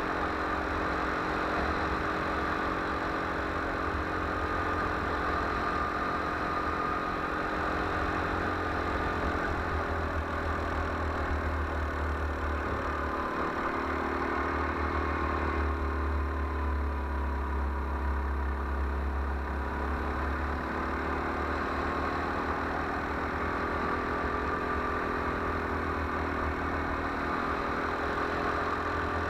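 Go-kart engine running at speed, heard from on board the kart, with a strong low rumble beneath it. Past the middle the engine note dips and then climbs again.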